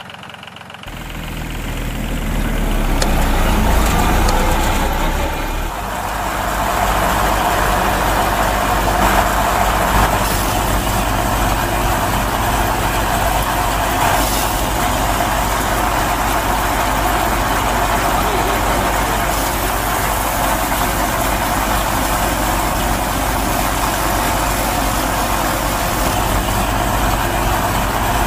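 An engine starts up about a second in and builds, dips briefly, then runs steadily.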